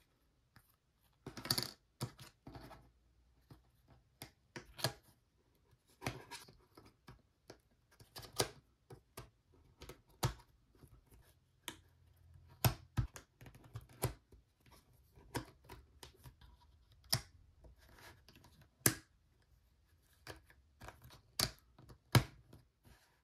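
Cardboard jigsaw puzzle pieces sliding, tapping and being pressed together on a hard tabletop. Irregular sharp clicks, a few every couple of seconds, come between short scrapes.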